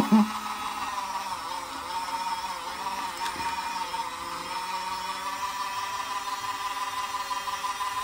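Daiso miniature washing machine's small electric motor running steadily, spinning its tub of water and a mask, with a constant whirring hum.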